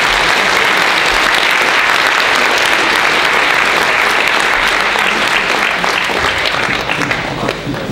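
Audience applauding: a dense, steady round of hand clapping that eases slightly near the end.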